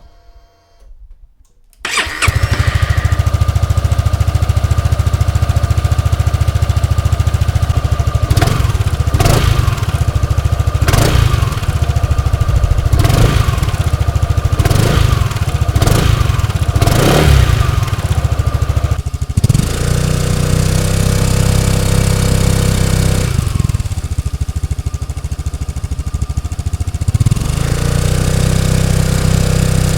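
2015 Honda Forza 300 scooter's single-cylinder engine on its factory exhaust, starting about two seconds in and then running. Through the middle it is given a string of short revs about once a second, then settles to a steady idle.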